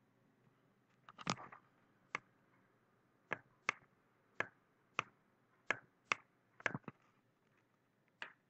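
Faint computer mouse clicks: about ten single sharp clicks at irregular spacing, roughly a second apart, with a short cluster about a second in.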